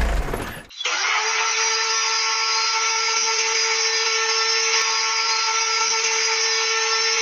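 A brief loud rush of noise, then a small electric hobby motor running steadily at constant speed with a high whine, cutting off just before the end.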